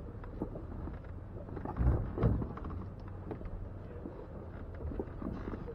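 Jeep engine running at a low idle while crawling over rock, with two heavy thumps about two seconds in, half a second apart.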